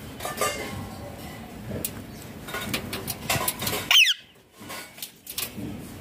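Irregular metallic clinks and rattles of a wire bird cage as an Indian ringneck parakeet moves on its perch and grips the bars, with one short, loud falling squeak about four seconds in.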